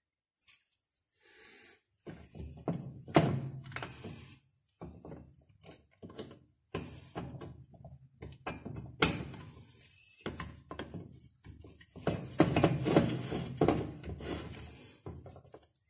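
Irregular knocks, clicks and rattling of tools and metal parts being handled while working on a brushcutter engine, starting about two seconds in and busiest near the end.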